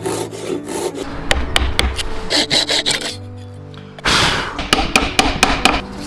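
Woodworking sounds of a tool scraping and rasping on wood, broken by sharp knocks, in two stretches with a short break about three seconds in. Soft background music with held notes plays underneath.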